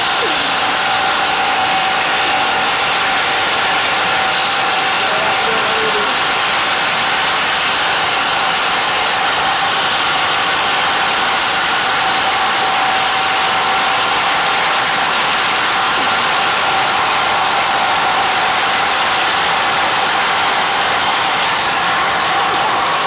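Two cordless impact drivers, a Stanley Fatmax SBI810 and a Craftsman, running together under load as they work large bits into a thick wooden beam. The result is a loud, steady, unbroken mechanical din with a constant whine.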